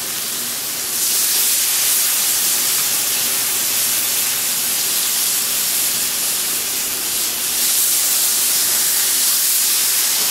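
Steaks searing on a hot flat-top griddle: a steady sizzle that grows louder about a second in.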